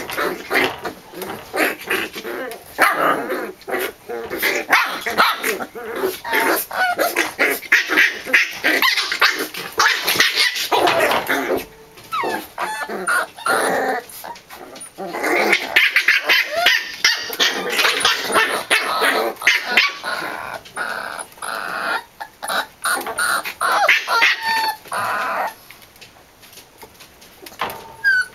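Pembroke Welsh Corgi puppies play-fighting with one another, giving many short, overlapping high-pitched barks and growls. The calls thin out briefly about halfway through and grow sparser near the end.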